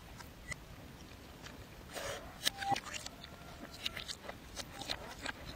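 Mukbang eating sounds played in reverse: irregular wet clicks, crunches and mouth smacks, with a few short squeaky snippets.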